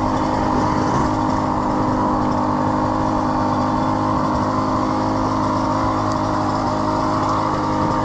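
Two-stroke dirt bike engine running at steady revs.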